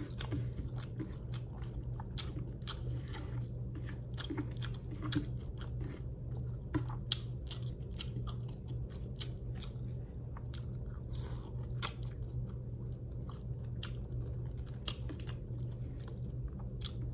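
A person chewing and biting food close to the microphone, with many short irregular mouth clicks, over a steady low hum.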